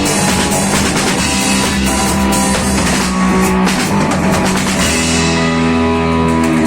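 A rock band playing live with drum kit, guitars and bass. About five seconds in the drum hits fall away and held chords keep ringing.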